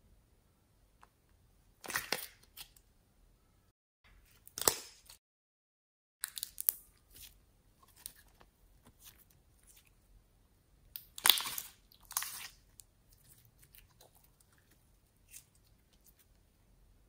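Sticky, bubbly pink slime squeezed and pulled by hand, giving several short bursts of crackling and squishing with quiet between, loudest about eleven seconds in.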